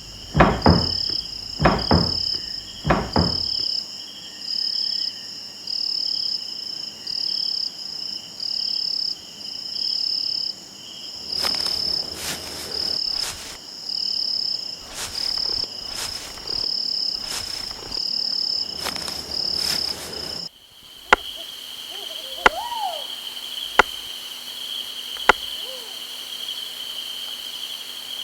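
Night insect ambience sound effect: insects chirping in even pulses a little more than once a second over a steady high trill, with a few sharp knocks in the first few seconds. About twenty seconds in it cuts abruptly to a steady insect trill with a few single sharp clicks.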